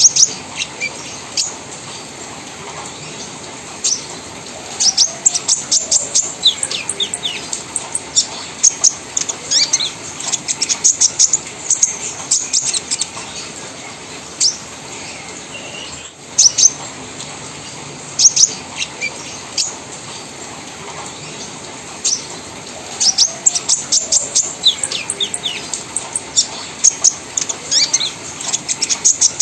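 Olive-backed sunbird (kolibri ninja) singing a fast chattering song: runs of quick, sharp, high chirps in bursts of several seconds, with short pauses between them.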